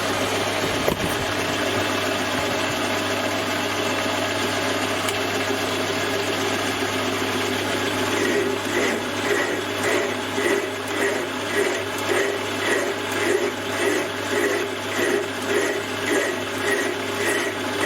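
Metal lathe running with a steady motor hum and whirring gears; about eight seconds in a rhythmic pulsing, about once a second, joins the running sound.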